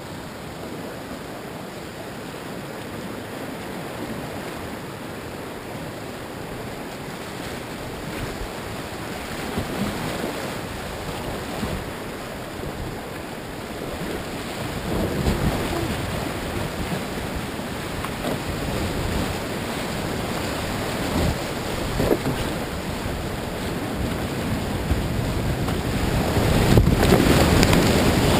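Whitewater rapids rushing around a kayak, with occasional louder splashes. The rush grows louder through the run and is loudest near the end, as the boat drops into foaming water.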